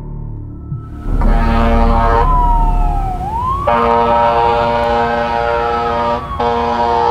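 Fire engine's siren wailing, its pitch sweeping slowly up and down. Three long horn blasts sound over it, the first about a second in.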